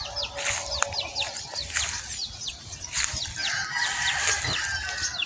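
Chickens: a run of short, high, falling peeps, about three a second, with a faint drawn-out call in the second half.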